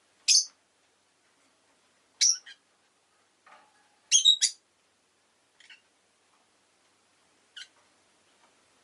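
Rosy-faced lovebird giving short, sharp chirps a second or two apart, with a quick double chirp near the middle and fainter chirps toward the end.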